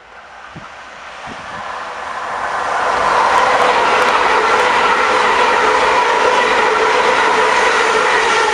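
Electric passenger train approaching and running through the station: a rushing rail and wheel noise builds over about three seconds, then stays loud and steady, with a few steady whining tones.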